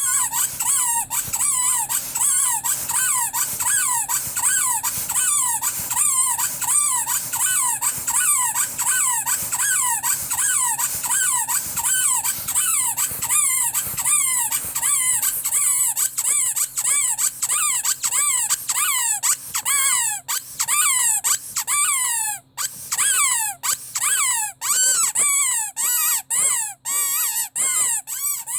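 Rubber squeaky toy squeezed over and over, a pitched squeak about two to three times a second. A little past twenty seconds there is a short break, and after it the squeezes come less evenly.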